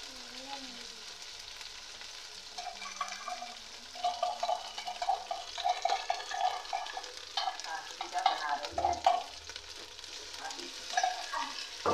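Onion with ginger-garlic-chilli paste frying in oil in a metal pot, a steady sizzle. From about two and a half seconds in, a metal ladle stirs and scrapes against the pot in a run of short repeated scrapes.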